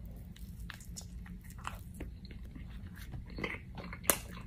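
Close-up biting and chewing of a soft ube ensaymada pastry: moist mouth clicks and smacks scattered over a low steady hum, with one sharper click about four seconds in.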